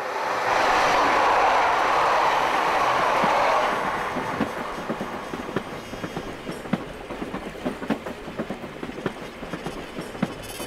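Train running on rails: a loud rush of passing noise for about the first four seconds, then quieter running with the quick, uneven clickety-clack of the wheels over rail joints.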